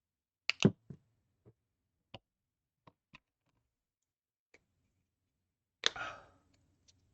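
Plastic LEGO pieces clicking and tapping as they are handled and pressed together: a quick cluster of sharp clicks about half a second in, scattered lighter clicks, then a louder clack with a brief rattle near the end.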